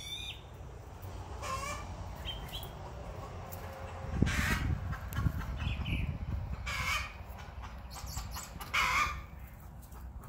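Easter Egger and White Leghorn hens clucking as they forage, with about four louder calls spread through. A low rumble comes in for a couple of seconds about four seconds in.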